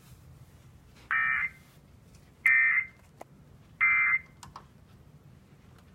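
Emergency Alert System end-of-message code: three short bursts of shrill digital data tones, each under half a second, about a second apart, marking the end of the relayed alert.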